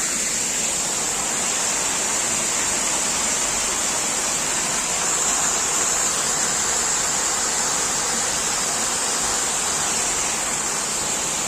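Waterfall rushing steadily, water falling from the hilltop between two rocks, a constant even roar of spray and splashing.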